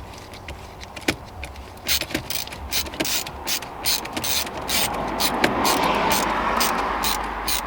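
A quarter-inch drive ratchet clicking, about three clicks a second, as screws are driven in to fasten the new wiper switch and steering-column parts.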